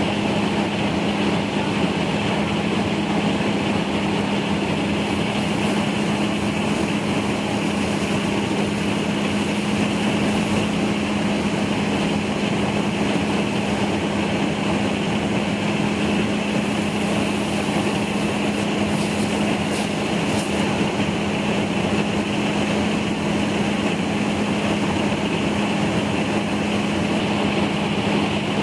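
Fire engine running steadily at a constant speed to drive its pump, giving an even engine hum, with the continuous rush of a hose stream spraying water onto burning boats.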